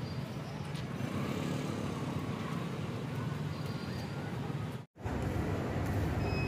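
Steady outdoor traffic and street noise, a continuous low rumble, broken by a brief gap of silence just before five seconds in.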